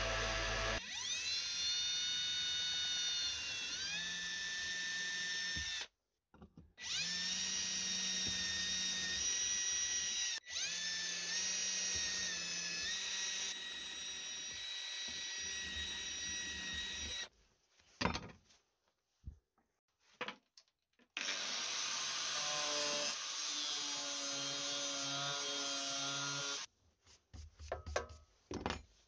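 Electric drill boring holes through a steel knife blank. It runs in several stretches of a few seconds each, its whine rising as it spins up and cutting off between holes. Near the end come a few short scrapes of a brush sweeping the shavings away.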